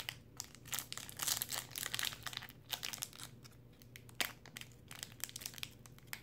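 Plastic trading-card pack wrapper crinkling and tearing as fingers work at its sealed edge, in irregular crackles that are busiest in the first couple of seconds. The pack is hard to tear open.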